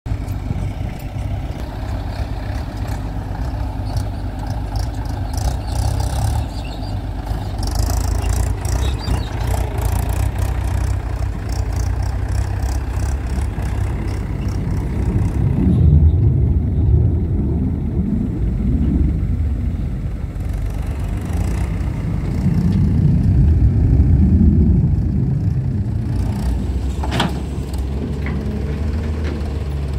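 Diesel engines running: a Hyundai crawler excavator working soil, with clinking and scraping in the first half, then a farm tractor with a trolley, its engine swelling louder twice in the second half.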